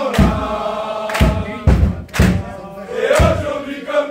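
A group of football players chanting together in unison, voices held on long notes, over a rhythmic beat of claps and thumps roughly once a second.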